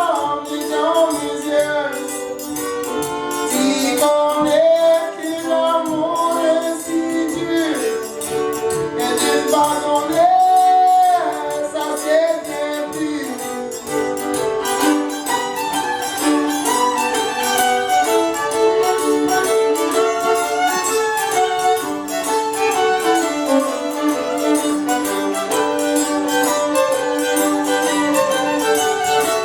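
A live Cajun string band playing a tune, with the fiddle prominent over the other instruments.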